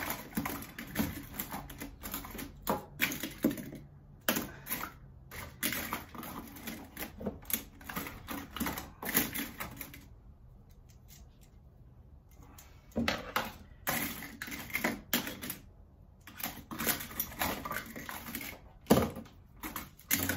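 Irregular clicks and light clatter of small tools and electrical parts being handled during panel wiring, with a pause of about two seconds just after the middle.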